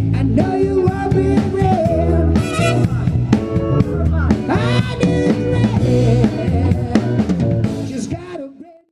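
A band playing with a full drum kit, bass and other pitched instruments, with some singing; the song fades and ends shortly before the end, leaving silence.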